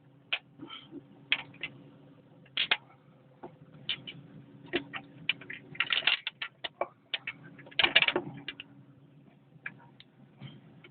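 Irregular metallic clicks, clinks and knocks as parts of an excavator's hydraulic drive motor, such as its pistons, are handled and set down, with small clattering flurries about six and eight seconds in. A faint steady hum runs underneath.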